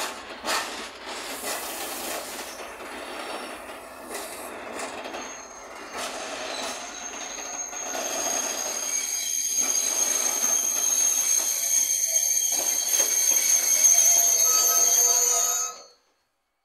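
Freight train wagons rolling past with wheels clattering over the rails. From about five seconds in, a high, steady wheel squeal sets in and grows louder, with lower squealing tones joining near the end. The sound cuts off abruptly just before the end.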